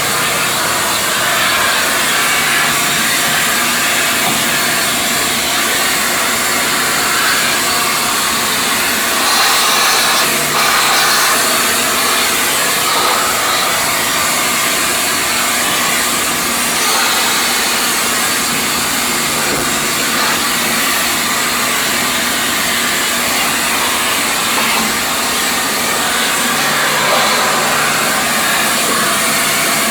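Steady motor hum with rushing air from fan-driven machinery, running without a break.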